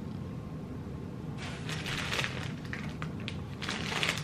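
Paper and plastic snack packaging rustling and crinkling in irregular bursts, starting about a second and a half in, over a low steady hum.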